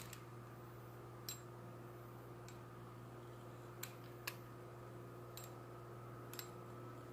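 About seven faint, scattered clicks and taps as a metal wheel cutter and fingers work sugar paste on a worktop, over a steady faint hum.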